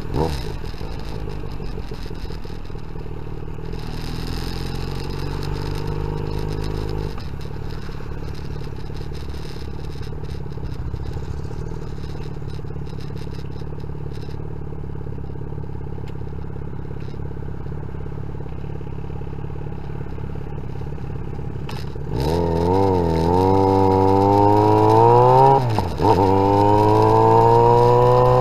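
Yamaha XJ6N's 600 cc inline-four, fitted with a new exhaust, idling steadily for about fifteen seconds. About three-quarters of the way in it gets louder and rises in pitch as the bike pulls away, with a brief dip at a gear change, then climbs again.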